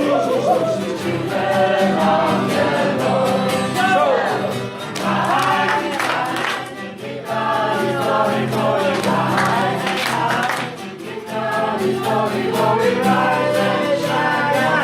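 A group of voices singing a song together, over steady low notes from an accompaniment.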